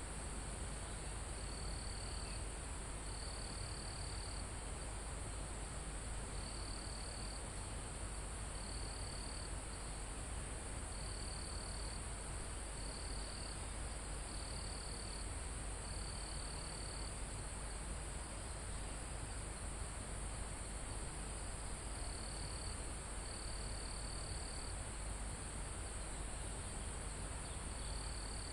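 A forest night-insect chorus: crickets and other insects keep up a steady high-pitched shrill, while one gives on-off trills about a second long, spaced a second or two apart with a few longer pauses, over a steady background hiss.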